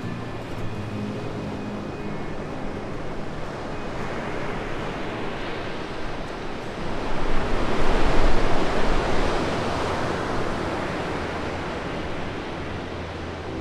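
Sea surf: a steady wash of breaking waves that grows louder about seven seconds in, peaks for a couple of seconds, then eases off again.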